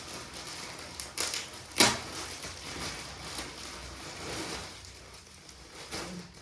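Rustling and crinkling of packaging being handled, with a sharp snap just before two seconds in and a smaller one a little earlier.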